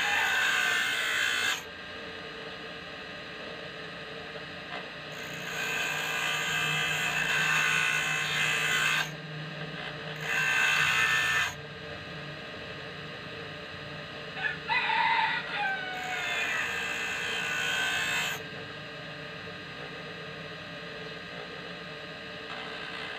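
Bench grinder running while a twist drill bit's tip is pressed to the grinding wheel in repeated passes of one to four seconds, each a loud grinding hiss of steel on the stone, dropping back to the motor's steady hum between passes; another pass begins near the end.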